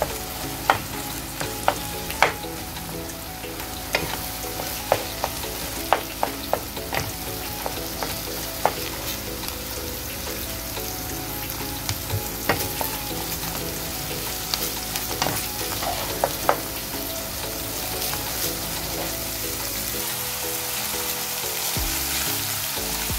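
Ground pork sizzling as it fries with onion and garlic in a nonstick frying pan, stirred and broken up with a wooden spatula that knocks against the pan at irregular moments, most often in the first two-thirds.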